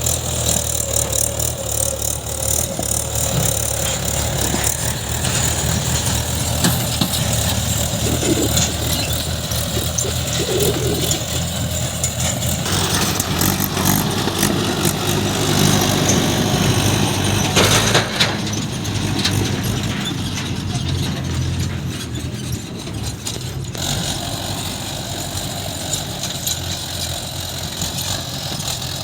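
Heavy diesel engine of a backhoe loader or farm tractor running steadily, with some clattering and a sharp metallic knock a little past the middle.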